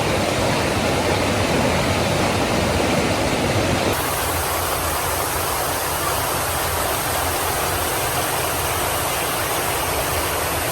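Waterfall's rushing water, a steady even noise; about four seconds in the sound shifts abruptly, as at a cut to another shot of the falls.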